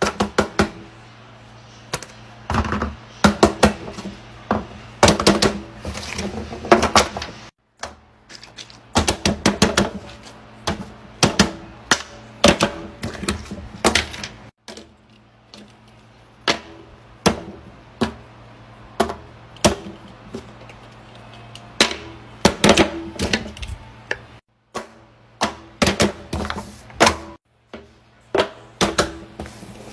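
Toys being set down and handled on a paper-covered wooden table: silicone pop-it fidget toys, a squishy ball, a fidget spinner and a phone. The handling gives irregular sharp clicks and knocks, some of them in quick runs.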